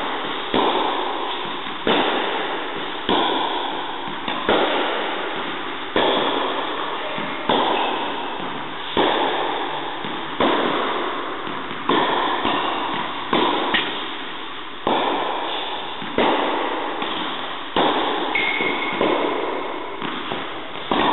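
Tennis balls being struck by a racket in an indoor tennis hall during a rally, roughly one hit every second and a half. Each sharp crack rings on in the hall's echo.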